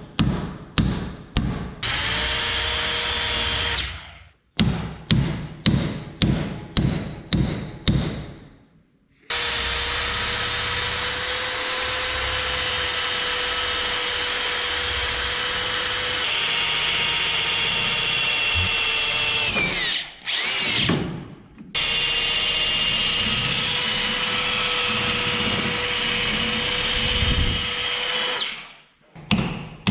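Corded electric drill boring out the broken wooden handle stuck in the eye of a sledgehammer head, running steadily with a brief stop about two-thirds of the way through. Before it, two quick series of sharp metal strikes, hammer blows on a punch driving the old wood out, with a short burst of drilling between them.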